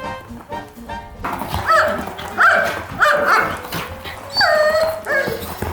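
A dog barking: about six short, high-pitched barks spread over a few seconds.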